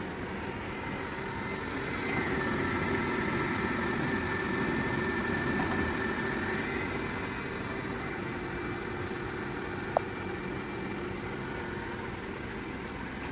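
Clausing CNC bed mill running a program, a steady machine hum with a higher whine. The hum grows louder from about 2 to 7 seconds in, and a single sharp click comes about ten seconds in.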